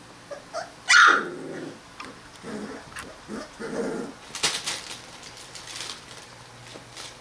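Three-week-old Rottweiler puppies: one sharp high bark about a second in, the loudest sound, followed by several short low growling calls. Then crisp crackling from a puppy nosing at the nylon play tunnel.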